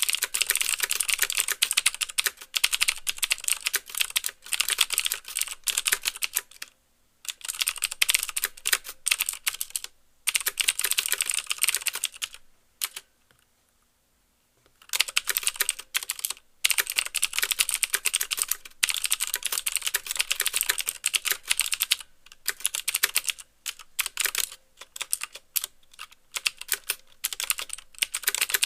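Fast typing on a CM Storm QuickFire Stealth mechanical keyboard with clicky Cherry MX Blue switches: a dense patter of crisp clicks, with the keys bottoming out. Brief pauses break it up, and one longer pause of about two seconds comes near the middle.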